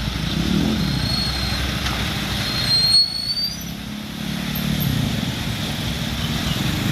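Road traffic running past: the engines of motorcycles and cars, with a brief louder peak about three seconds in. A thin high whistle sounds three times, rising the last time.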